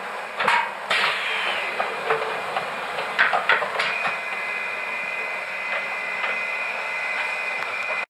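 Flatbed offset lithographic proof press at work: a few metal clanks and knocks from its gripper bar and mechanism in the first four seconds, then, from about four seconds in, its motor runs with a steady high whine.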